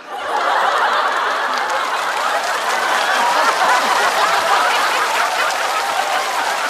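Studio audience laughing and applauding together, a loud, steady wave of laughter and clapping that starts right after a punchline.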